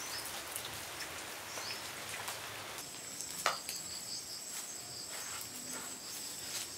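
A dense crackly patter for the first three seconds, then insects trilling steadily at a high pitch, with a few sharp cracks, the loudest about halfway through.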